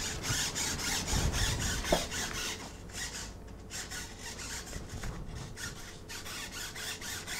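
Small RC servos whirring in rapid short bursts, several a second, as the flight controller drives the rudder to counter the airplane being moved by hand; the yaw gain has just been raised to 100, so the rudder servo reacts hard.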